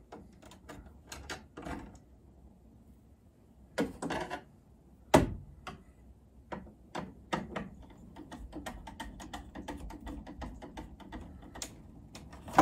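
Clicks, taps and rustling from hands working a wire inside a metal electrical sub panel while the neutral wire is fitted to the neutral bar, with one sharper knock about five seconds in and a quicker run of small clicks in the second half.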